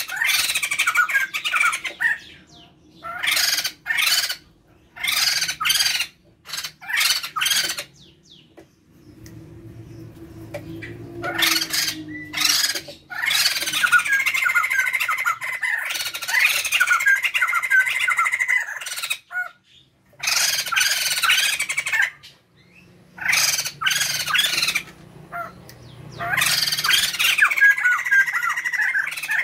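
A male and female pair of laughingthrushes (poksay jambul) calling loudly in raucous, squawking bursts of chatter lasting several seconds each, with short pauses between bursts.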